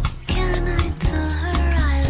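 Background music: sustained melodic notes over a steady beat.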